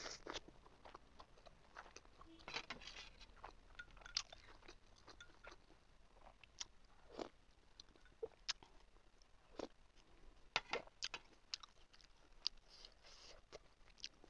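Close-miked chewing and lip-smacking while eating steamed chicken momos (dumplings) with chutney, with many scattered sharp wet mouth clicks.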